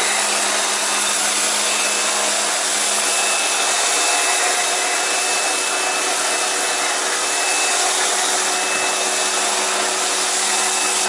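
Kärcher K2 Basic electric pressure washer running under load while its foam nozzle sprays detergent foam: a steady motor-and-pump drone with a constant low hum under the hiss of the spray, cutting off suddenly at the end.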